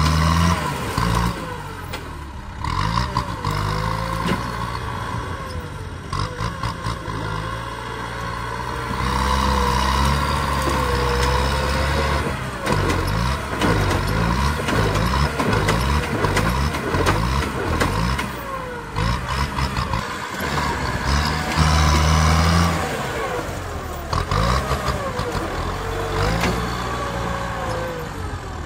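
Kubota tractor's diesel engine working under load as its front blade pushes against a hard termite mound, its pitch rising and falling as the engine is worked.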